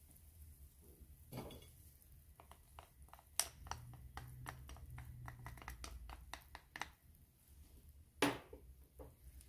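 A spatula scraping and tapping against a small glass bowl, a quick run of light clinks about four a second, as chopped garlic is knocked out into the pan. Near the end, a sharper knock as the glass bowl is set down on the table.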